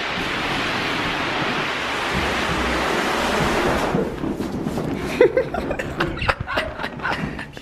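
Inflatable air mattress dragged over carpet: a steady scraping hiss for about four seconds that stops suddenly, followed by scattered knocks and short squeaks as it is shoved and shifted.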